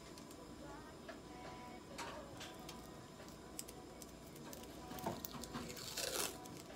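Faint scattered clicks and rustles of gloved hands handling tape and gauze, with a short scratchy rasp about six seconds in, as of adhesive tape being pulled off its roll.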